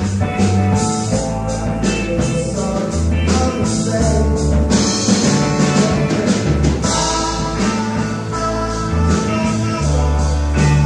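Live psychedelic rock band playing, a man singing lead over bass and drums.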